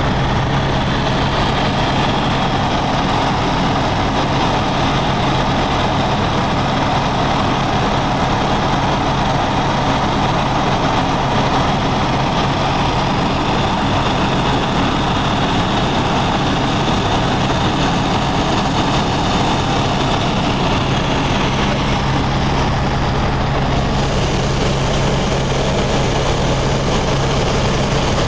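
Helicopter in flight: the steady, unbroken drone of its engine and rotors.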